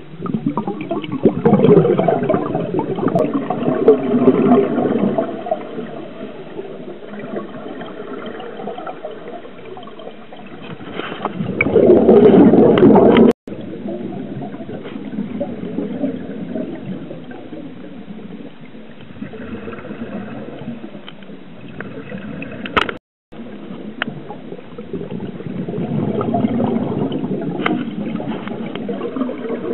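Underwater recording of scuba divers' exhaled bubbles gurgling and rushing from their regulators, coming in surges and loudest for a couple of seconds near the middle. The sound breaks off abruptly twice, near the middle and about two-thirds through.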